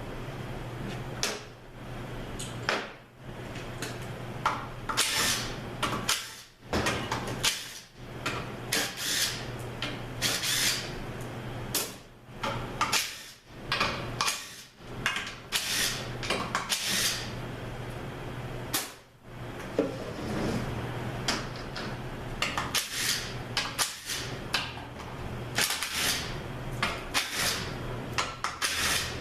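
Metal hand tools clinking and clattering: irregular sharp clicks and clanks throughout, over a steady low hum.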